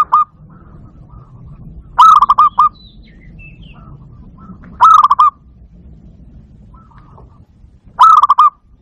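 Barred dove (zebra dove, bato-bato) calling: three short, quick runs of stuttering coo notes, each about half a second long and about three seconds apart, with the tail of another call right at the start.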